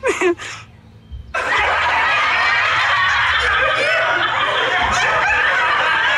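Many voices laughing and giggling together, a continuous wash of laughter that starts suddenly about a second and a half in after a short lull.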